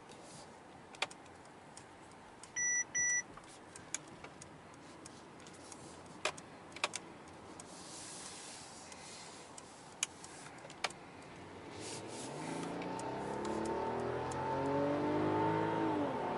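Quiet cabin of a Mercedes S500 with road hum, two short beeps about three seconds in and a few sharp clicks. From about twelve seconds its 3.0-litre inline-six comes up under acceleration, its note rising and getting louder, then dropping near the end as the nine-speed automatic shifts up.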